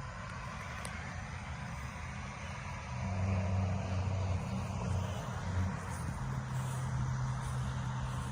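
Gas engine of a pressure washer running steadily, growing louder about three seconds in, its note shifting about six seconds in, over a steady hiss.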